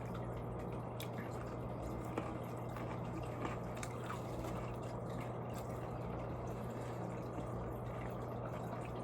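Steady low background hiss with a low hum, broken by a few faint clicks.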